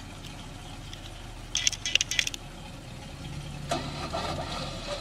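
A truck engine runs with a low, steady hum. About a second and a half in comes a quick burst of sharp rattling clinks, and a rougher, louder noise starts near the end.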